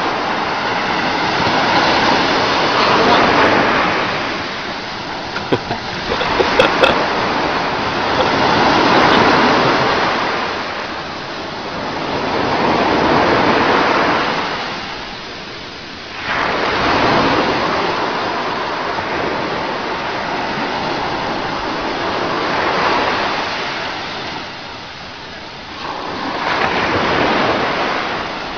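Ocean surf breaking and washing up the beach, swelling and falling in waves every few seconds, with water splashing around a wading baby elephant. A few short sharp clicks come about six seconds in.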